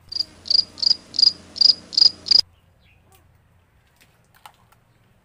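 Cricket chirping sound effect: seven high chirps at about three a second that cut in and cut off abruptly after about two and a half seconds.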